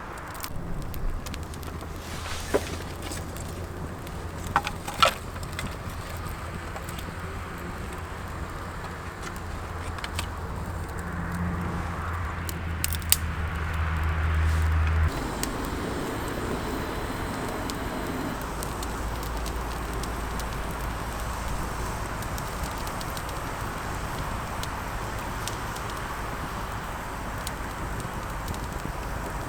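Honda CT125 Hunter Cub's single-cylinder engine running with a steady low hum, growing a little louder before it cuts off suddenly about halfway through. A few sharp clicks in the first five seconds.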